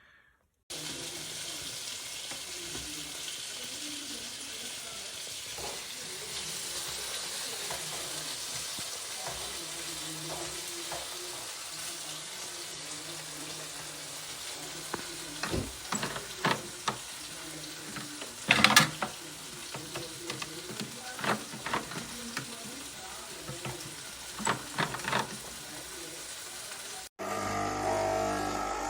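Swan SK22110BLN espresso machine running with a steady hiss over a low hum, with crackling, sputtering pops in the second half. It is much louder than it should be and is leaking water, which the owner takes as a sign the machine is broken.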